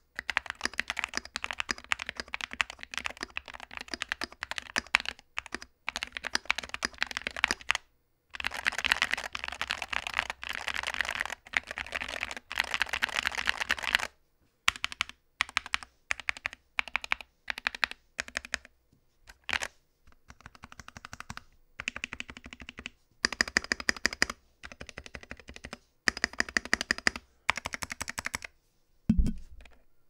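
Modded SK61 60% mechanical keyboard with lubed, de-clicked Gateron optical blue switches and PE-foam case dampening, typed on fast and steadily for about half the time, then key by key and in short bursts with gaps. Near the end comes one deeper clack from a stabilized key whose stabilizer could not be fixed.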